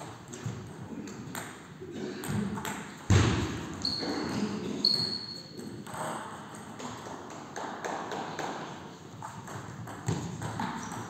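Table tennis ball clicking off bats and table during play, with a heavy thump about three seconds in. Two short high squeaks, rubber shoe soles on the sports floor, come around four and five seconds in.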